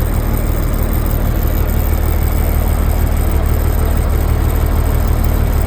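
1973 M35A2 deuce-and-a-half's turbocharged multifuel inline-six diesel idling steadily, loud through its factory straight-piped exhaust with no muffler.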